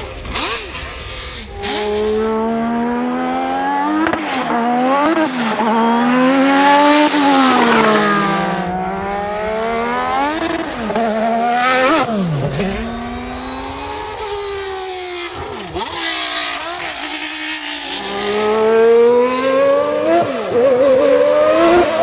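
Honda Formula One racing engines revving in turn, the pitch climbing and dropping again and again: first the 1964 RA271 1.5-litre V12, then from about halfway the 1988 RA168E 1.5-litre turbocharged V6, and near the end the 1991 RA121E 3.5-litre V12.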